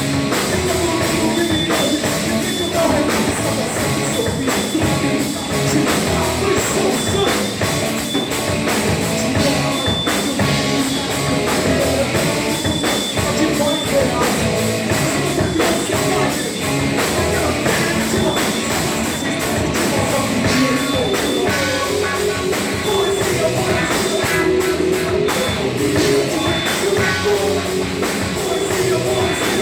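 Live hardcore punk band playing loud, with distorted guitars, bass and pounding drums, recorded on a phone or camera in a small bar.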